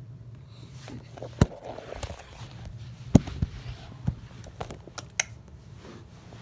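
Handling noise: an irregular string of sharp clicks and knocks as the phone and toys are moved against hard surfaces, loudest about a second and a half in and again just after three seconds, over a low steady hum.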